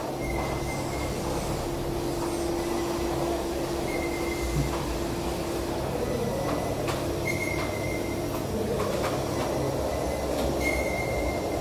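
Gym room noise: a steady low rumble and hum, with a faint high squeak that comes about every three and a half seconds and a few light knocks.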